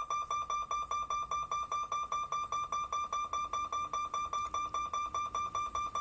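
Level crossing warning alarm beeping in a rapid, even pulse, about four and a half beeps a second on one steady high tone: the signal that the gate is closed and a train is approaching.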